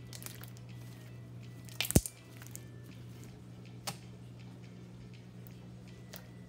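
Clear putty slime with boba-ball add-ins being squished and pressed by hand, giving a few sharp clicks and pops, the loudest about two seconds in.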